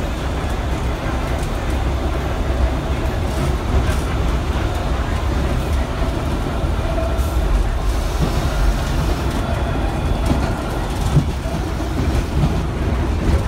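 IRT subway train running through a tunnel, heard from inside the car: a steady low rumble of wheels on the rails, with a few faint clicks over the track.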